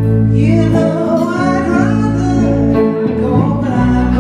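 Live blues performance: a woman singing lead over an electric guitar, with sustained low notes underneath.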